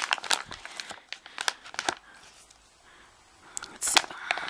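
Plastic treat pouch crinkling in the hands as it is turned over, in scattered sharp crackles with a quieter spell in the middle and a louder crinkle near the end.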